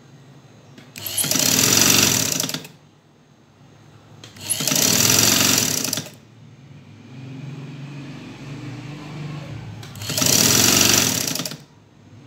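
Motor-driven sewing machine stitching a seam in three runs of about a second and a half each, with pauses between as the cloth is repositioned. A quieter low hum sounds between the second and third runs.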